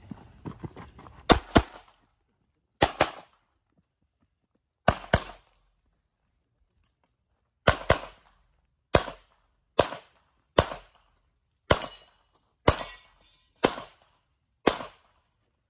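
9mm pistol fired in a rapid IPSC string, mostly as quick double taps, with short pauses between pairs as the shooter moves from target to target.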